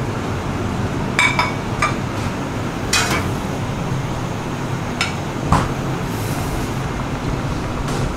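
Ceramic plates clinking and knocking against each other and the stainless steel pass as they are picked up, a handful of sharp clinks spread through, over a steady hum of kitchen ventilation.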